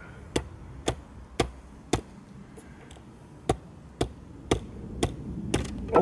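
Sharp knocks of a mallet striking the back of a pair of steel scissors to baton them into a piece of spruce: four blows about half a second apart, a short pause, then about five more. The blades are not splitting the wood.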